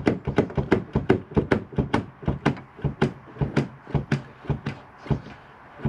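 A rapid, even series of sharp clicks or taps, about four or five a second, growing fainter toward the end and stopping about five seconds in.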